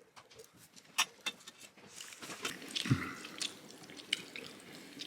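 Water dripping and splashing with scattered small clicks and knocks; the loudest knock comes about three seconds in.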